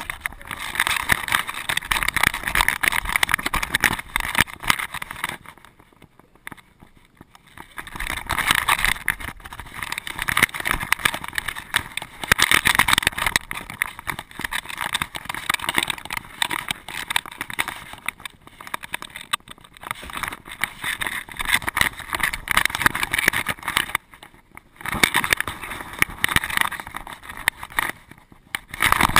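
Handling noise from a loosely mounted action camera on a dog's back: the camera scraping and rustling against the fur and rattling in its mount as the dog moves, irregular and scratchy, with two short lulls when the dog goes still.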